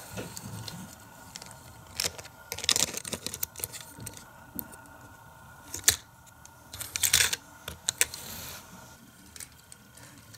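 Irregular clicks and clatter of a Hot Wheels die-cast car and the plastic parts of a Power Lift Garage playset being handled, with a few louder bursts of rattling about a quarter and two thirds of the way through.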